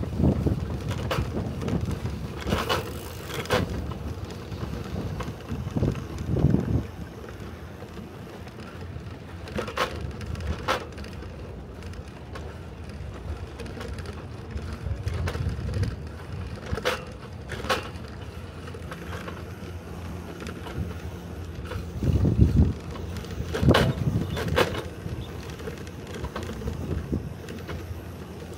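Bicycle rolling along a concrete path: a steady low tyre rumble with wind on the microphone, broken by scattered sharp clicks and rattles and a couple of louder low bumps.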